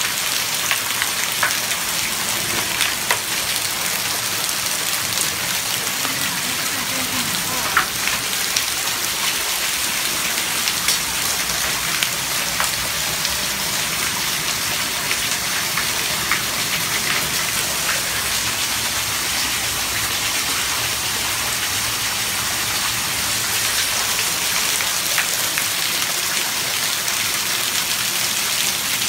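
Heavy rain mixed with hail pelting the ground and paving: a steady, dense hiss with scattered sharp ticks of hailstones striking.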